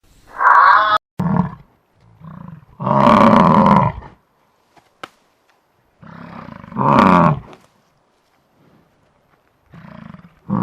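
Big cat roaring, a series of about six roars and growls separated by short pauses, the loudest about three and seven seconds in.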